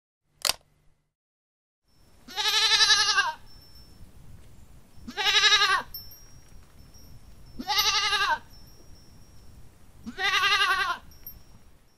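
A goat bleating four times, each call about a second long with a quavering pitch, a few seconds apart. About half a second in there is a short sharp click.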